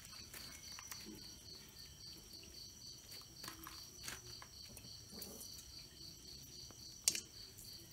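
Crickets chirping in a steady, evenly pulsing rhythm, with one sharp click a little after seven seconds in.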